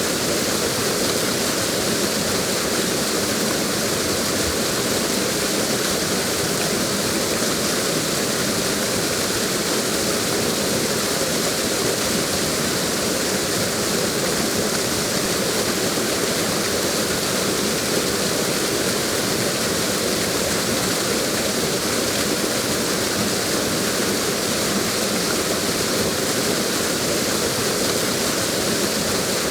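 Waterfall rushing steadily, an even, unchanging roar of falling water.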